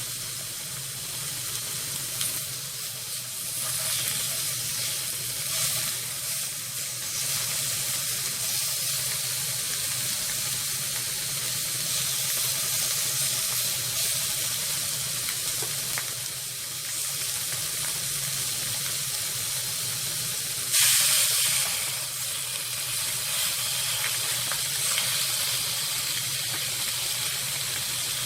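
Slices of duck and beef sizzling on a hot pan greased with beef fat, a steady frying hiss. About three-quarters of the way through, the sizzling briefly surges louder.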